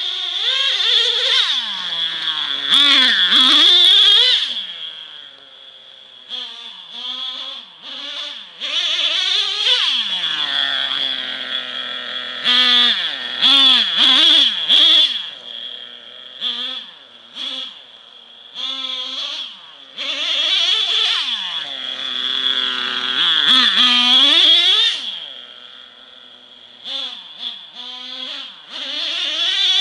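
Traxxas Revo RC monster truck's O.S. .21 nitro engine revving up and dropping back to idle over and over. The pitch sweeps up and down as the truck is driven in bursts, with a few quieter idling stretches between.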